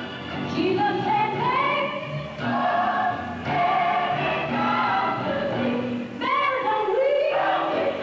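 Music for a dance piece: a choir singing with accompaniment, the voices rising and swelling in long phrases.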